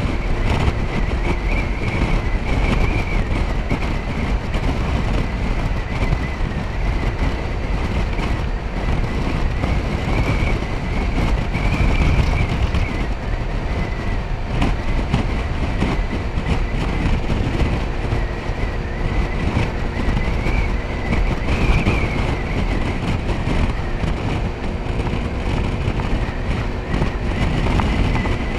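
Motor scooter riding along at a steady speed: engine drone and road noise under heavy wind rumble on the microphone, with a thin, wavering high whine.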